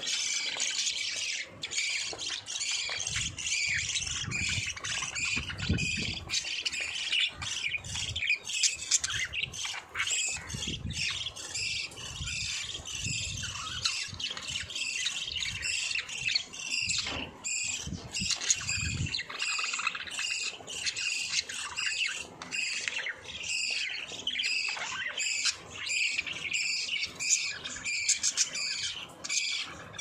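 A flock of budgerigars chirping and chattering without a break, many quick calls overlapping. A low rumble sits underneath now and then in the first two-thirds.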